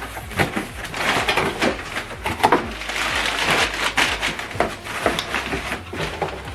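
Cardboard parcel packaging being handled and opened by hand: rustling and scraping with a run of irregular knocks and clicks.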